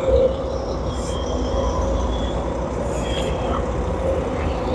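Steady low vehicle rumble with a constant whining tone and a few faint clicks.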